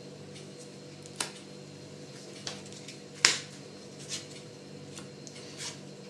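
Trading cards being handled and set down on a playmat: about five short, sharp clicks spread over the few seconds, the loudest a little past the middle, over a steady low hum.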